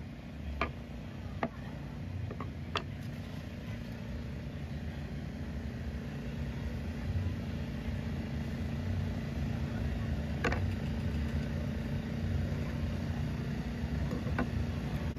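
Steady low mechanical rumble, engine-like, with a few sharp knocks on a cutting board: three in the first three seconds and two more later.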